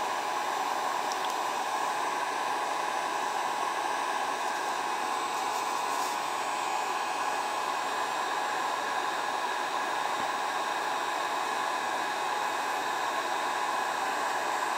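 Electric heat gun running steadily at about 600 degrees, its fan giving a constant rush of air with a faint steady whine, while it melts polyethylene tarp plastic.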